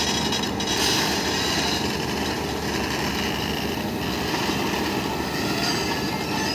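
Volvo EC240 BLC tracked excavator's diesel engine working hard as its steel tracks churn and slip on a loose pile of crushed aggregate: a steady mechanical rumble.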